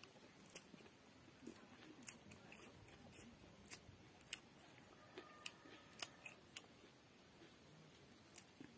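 Faint eating sounds: scattered, irregular clicks and smacks of chewing, with fingers picking rice and food off a banana leaf.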